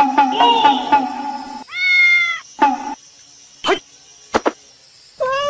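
A kitten meows twice: one drawn-out meow about two seconds in and a shorter one near the end. Before the first meow there is a steady, fast-pulsing tone for about a second and a half, and a couple of sharp clicks fall between the meows.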